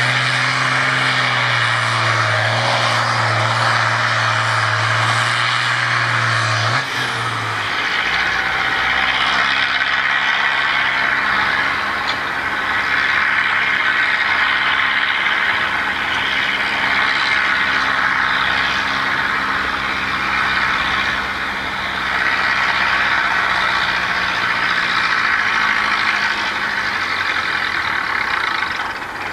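Diesel farm tractors pulling a weight-transfer sled, the engines running hard under load. About seven seconds in the deep, steady engine note breaks off and a different tractor's engine takes over.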